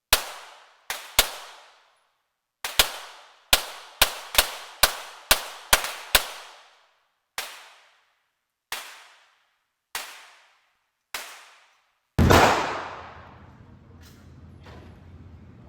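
Ruger Security-9 9mm pistol firing at an indoor range: about sixteen shots, each with a short echoing tail. The shots come in a quick irregular string, then slow to single shots about every second and a half. About 12 seconds in comes one louder, longer boom that leaves lingering noise after it.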